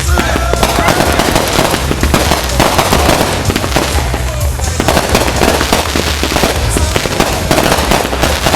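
Fireworks going off in a dense barrage of rapid bangs and crackles, with music playing underneath.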